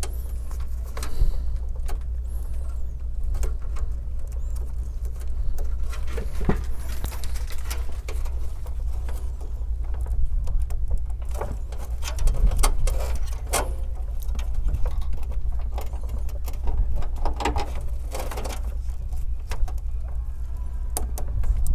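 Gloved hands handling PC power cables and plastic connectors, giving scattered clicks and rustles over a steady low hum.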